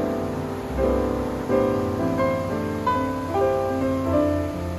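Background piano music, a run of single notes following one another.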